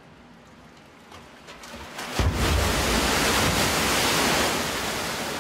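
Man-made tsunami wave in a large laboratory wave flume: a rush of water builds, then about two seconds in the wave crashes suddenly and loudly, going on as a sustained rushing, churning surge of water and spray.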